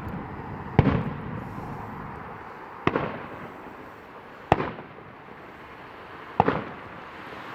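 Fireworks bursting overhead: four sharp bangs, roughly one every two seconds, each followed by a short echoing rumble.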